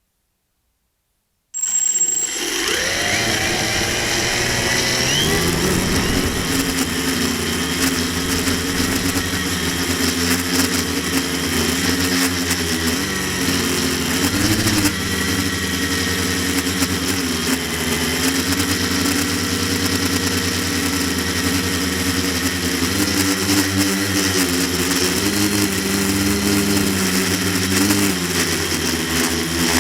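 Quadcopter's electric motors and propellers humming steadily, starting about a second and a half in, their pitch shifting up and down again and again as the throttle changes.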